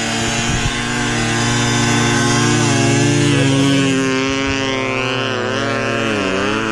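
Yamaha YZ250 two-stroke snow bike on a Camso track kit riding by under throttle. The engine pitch climbs over the first few seconds, then rises and falls with the throttle, dipping sharply near the end.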